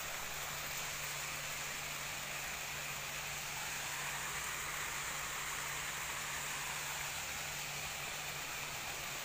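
Steady rushing of water tumbling down a stepped rock cascade, an even hiss with a faint low hum underneath.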